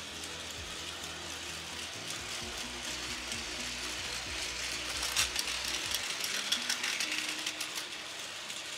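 Battery-driven Plarail toy train running on plastic track: a steady whir from its small motor and gearbox, with rattling clicks from the wheels on the track. The clicking grows louder about halfway through, as the train passes closest.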